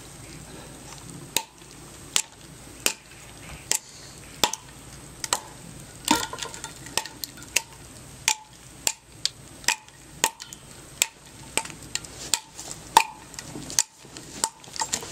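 Schrade SCHF44 double-edged steel dagger chopping and slashing into a wooden post: a run of about twenty sharp knocks, one or two a second.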